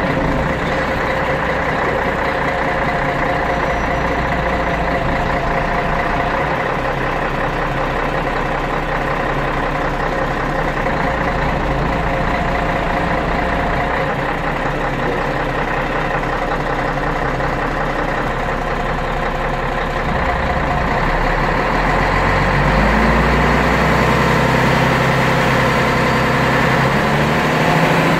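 Scania DSC 11.71 six-cylinder turbodiesel engine of a 1997 Scania CN113CLL city bus, heard from inside the rear of the passenger cabin. It runs steadily, then its note rises and grows a little louder for the last several seconds.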